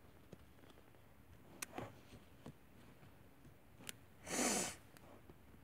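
Dolls and their clothes being handled close to the microphone: a few faint clicks and taps, then one short rush of noise lasting about half a second, a little over four seconds in.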